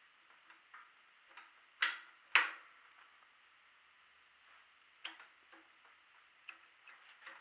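A few sharp clicks and taps of small metal parts being handled, two louder ones about two seconds in, then lighter ticks: a small contact wheel being fitted on a belt sander's small wheel attachment.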